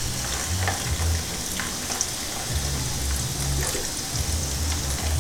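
Club soda poured over ice in a tall glass, fizzing and crackling steadily, with faint ticks of the ice settling and an on-and-off low hum underneath.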